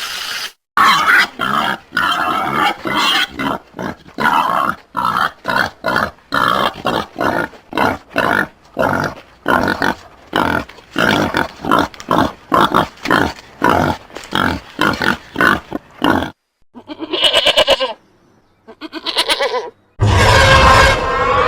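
Creature sound effect: a long run of short, pig-like grunts, about two or three a second, then two short harsh calls. Near the end a different drawn-out call starts, with a wavering pitch.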